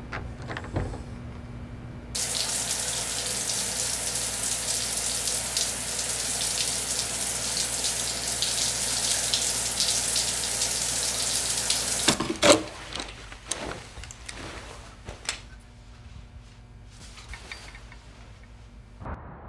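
A shower running, its spray hissing steadily from about two seconds in and cutting off suddenly about twelve seconds in. A sharp knock follows, then a few light clicks and rustles.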